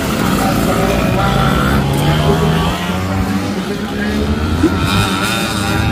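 Two-stroke Vespa scooter engines revving on the throttle, their pitch rising and falling.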